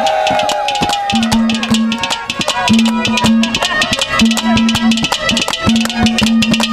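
Live Haryanvi ragni music between verses: fast, dense drum strokes over a held low note that breaks off and comes back every second or so. A voice trails off in the first second.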